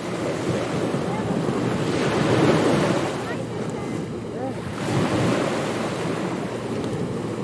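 Ocean waves washing onto a beach, the surf swelling and falling back, loudest about two and a half seconds in and again around five seconds, with wind.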